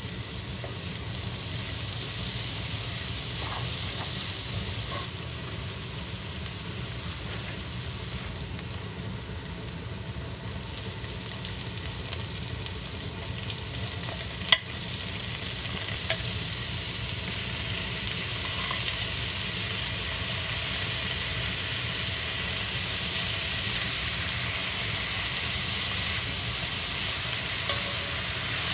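Food sizzling as it fries in a hot pan while it is stirred, a steady hiss broken by a few sharp clicks, the loudest about halfway through.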